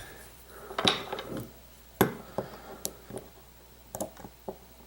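Light metal clicks and clinks of a pin-tumbler lock and lock-picking tools being handled, about a dozen separate taps spread over a few seconds.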